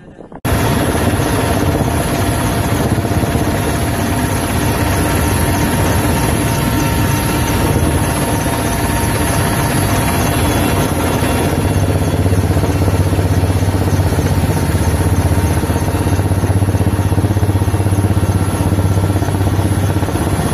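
Helicopter engine and rotor noise heard from on board: a loud, steady drone with a constant high whine, getting heavier in the low end about halfway through.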